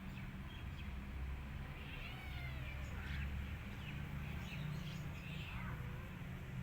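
Cats meowing: a few short, high-pitched mews, one about two seconds in and several more between about three and a half and five and a half seconds, over a steady low hum.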